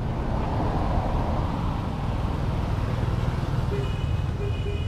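Steady low rumble of road traffic from passing motor scooters and a car. A brief high, steady tone comes in near the end.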